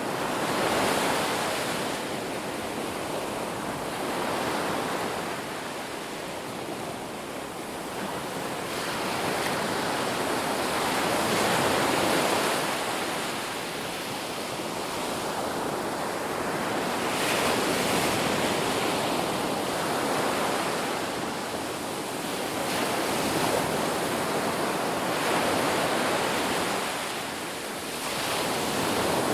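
Ocean surf: waves breaking and washing up the shore in a continuous rush that swells and ebbs every few seconds.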